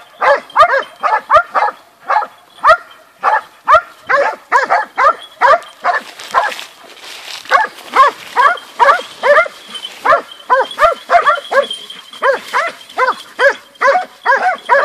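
Several hunting dogs barking rapidly and without a break, about two to three barks a second, as they hold a wild boar at bay. The barking eases briefly about halfway through, then picks up again.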